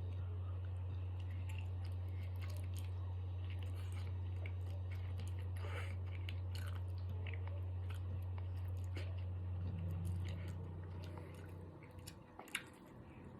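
A person chewing spicy instant ramen noodles, with small wet mouth clicks, over a steady low hum that fades out near the end.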